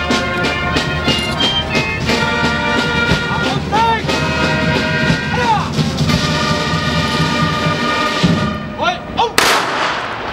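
Military band music with brass plays, then about nine seconds in the soldiers fire a single loud rifle volley together as an honour salute.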